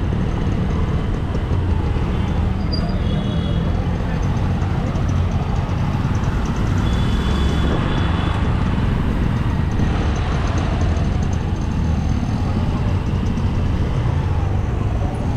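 Steady wind rush on the microphone of a GoPro riding along with a bicycle, over road and traffic noise, with two brief high tones about three and seven seconds in.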